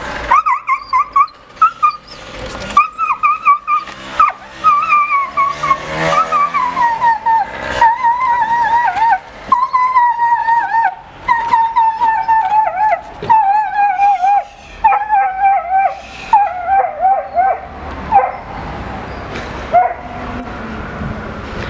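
A small, injured terrier-type dog with a broken lower jaw crying out in pain and fear while he is caught in a blanket and carried off. The cries are high, wavering yelps and screams in a long, nearly unbroken run that slowly drops in pitch, then stop near the end, with one last short cry. Street traffic can be heard after that.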